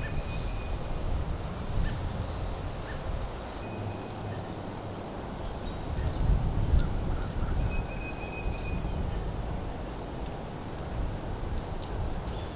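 Woodland ambience: small birds chirping in short high notes, with a few brief thin whistled tones, over a low rumble of wind on the microphone.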